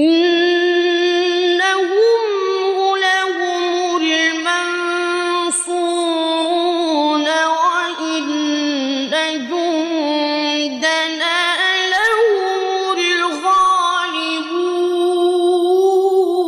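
Male Quran reciter's voice in tajweed-style recitation, drawing out one long unbroken melodic line with trills and slides in pitch, held high throughout.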